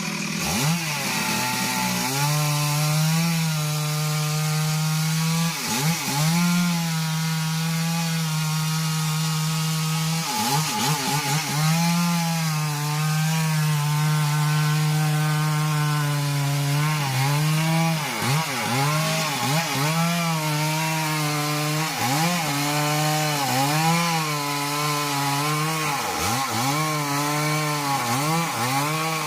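Chainsaw running at high revs while cutting a genipap trunk, its pitch dipping again and again as the chain bogs down in the wood, then climbing back.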